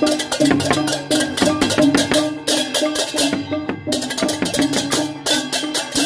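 Balinese processional gamelan for a barong: fast, dense clashing of ceng-ceng cymbals over a kendang drum and small gongs ringing steady tones. The cymbals break off for a moment just before four seconds in, then come back.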